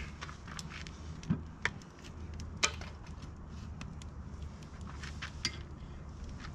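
Scattered clicks and light clinks of small objects being handled, over a steady low hum.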